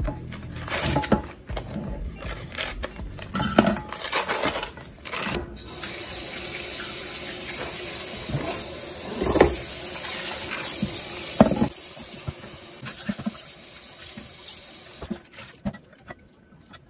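Kitchen tap running into a stainless steel sink as yogurt-marinated venison is rinsed in a bowl beneath it, with a few clunks and splashes of handling. The water cuts off about three quarters of the way through, leaving only quieter handling of the meat and bowl.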